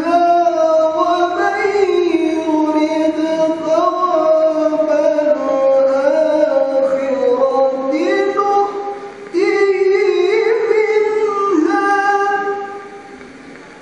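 A man's melodic Quran recitation (tilawah) into a handheld microphone: long held, ornamented notes that wind up and down in pitch, with a short breath break about nine seconds in. The voice stops shortly before the end.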